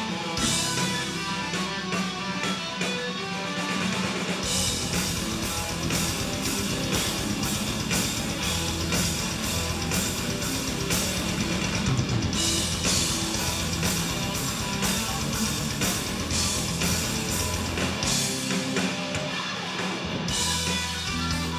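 Live rock band playing: electric guitars and drum kit. The low end of bass and drums comes in heavily about four seconds in and thins out briefly near the end.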